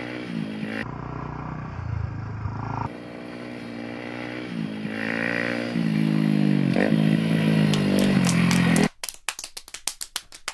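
Kawasaki KLX125's single-cylinder four-stroke through an aftermarket BEAMS R-EVO stainless silencer, revving up and down through gear changes and growing louder as the bike comes closer. About nine seconds in the engine sound cuts off suddenly, and a run of sharp claps follows.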